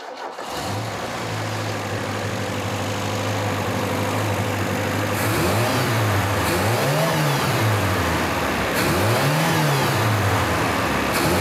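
Car engine running steadily, then revved up and let back down twice, with a third rev starting near the end. It drives a power steering pump that pushes a jet of water through a hose, heard as a steady hiss underneath. The pump's pressure-reduction valve has a nut placed under its spring so that the pressure climbs as the revs build.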